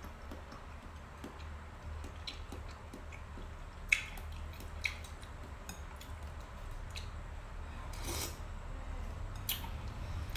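Quiet eating sounds: soft, wet mouth noises and scattered small clicks of a utensil against a dish, the sharpest click about four seconds in, over a steady low hum.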